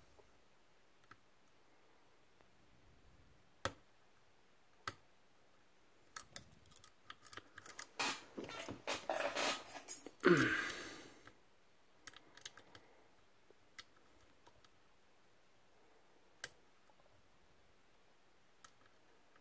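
Small clicks and scrapes of lock picks and a tension tool being worked in a Medeco M3 lock. Scattered single ticks, with a busier stretch of rattling and scraping in the middle.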